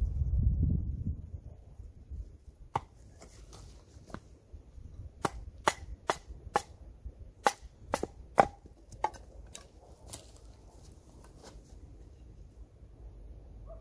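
Batoning kindling: a wooden stick striking the spine of a knife driven into a thin strip of pine board, a series of about ten sharp wooden knocks spaced under a second apart, thickest and loudest between about five and nine seconds in.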